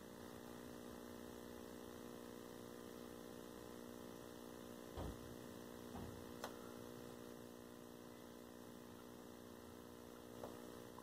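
Faint, steady electrical mains hum from a running 1984 Emerson EC133 colour CRT television, with a few soft clicks now and then.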